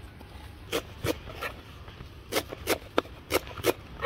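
Kitchen knife chopping fresh coriander leaves on a banana leaf: a string of short, crisp cuts at an uneven pace, starting about a second in.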